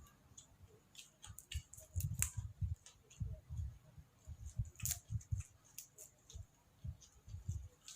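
A person chewing food close to the microphone: irregular soft thuds in quick runs, with sharp crisp clicks, strongest about two and five seconds in.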